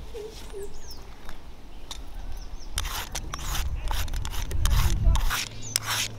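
A hand vegetable peeler scraping the ridges off a ridge gourd in repeated short strokes, a few at first, then quicker and louder in the second half. A low rumble runs under the strokes from about halfway until shortly before the end.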